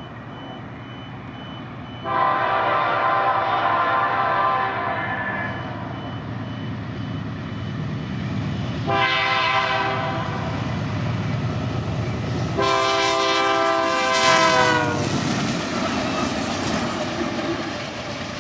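BNSF GE C44-9W diesel locomotive approaching and sounding its air horn: a long blast, a short one, then another long blast whose pitch drops as it ends, over a steady low rumble of engine and wheels.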